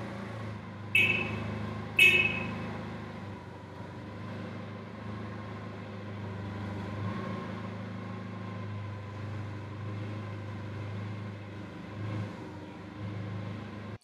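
Propane-fuelled Caterpillar forklift engine running steadily, with two short horn honks about a second apart near the start, the safety warning before the forklift moves off.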